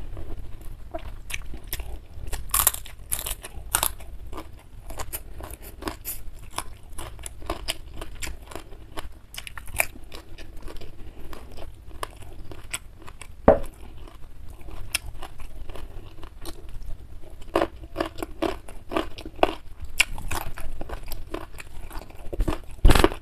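Close-miked chewing, with frequent short crunches of crisp fried fish being eaten. There is one sharp knock about thirteen seconds in.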